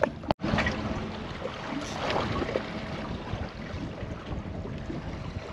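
Wind buffeting the microphone over the steady wash of sea water around a small drifting boat, with a brief drop-out about a third of a second in.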